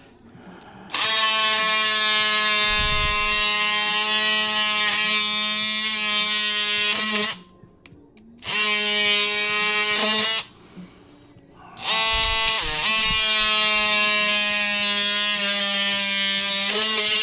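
Small handheld electric saw buzzing at a steady high pitch in three runs, the longest about six seconds, with short pauses between, as it cuts through a plastic factory speaker mount.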